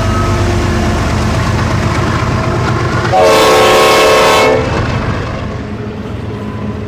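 GE ES44AH diesel locomotive passing close by, its GEVO V12 engine droning steadily over the train's rumble. About three seconds in, one loud blast of its multi-tone air horn lasts about a second and a half, sounded for the grade crossing ahead. After the blast the sound drops to a quieter rumble of railcars rolling past.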